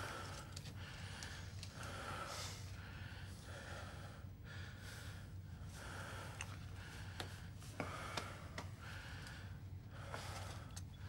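A man breathing heavily in short, rapid gasps, in and out about once a second: out of breath and exhausted after a boxing bout.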